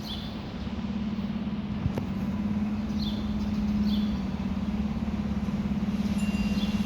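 Electronic Q-siren on a fire truck sounding a low, rapidly pulsing drone, a cheap-sounding imitation of the mechanical Q siren's growl. It swells a little around the middle and then holds steady.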